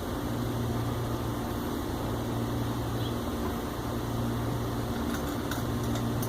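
Steady low mechanical hum, with a few faint light clicks about five to six seconds in.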